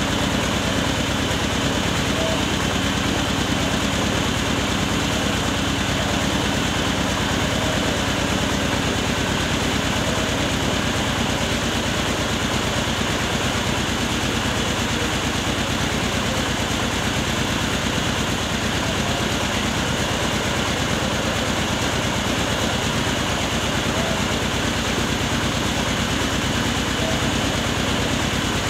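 Engine-driven mobile rice mill running steadily while milling paddy, a constant even engine-and-machinery hum with a fine regular pulse.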